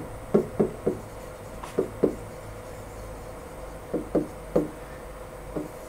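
Stylus tip tapping and knocking against the glass of an interactive smart-board screen while handwriting: about nine short knocks in irregular clusters.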